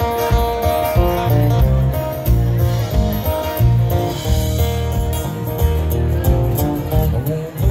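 Live band playing a country song: strummed acoustic guitar over an electric bass line and a drum kit, with no singing.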